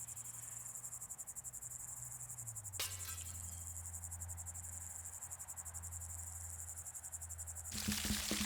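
Crickets chirping in a fast, steady high trill over a low hum, with a single click about three seconds in. Near the end the crickets stop abruptly and a rushing noise cuts in.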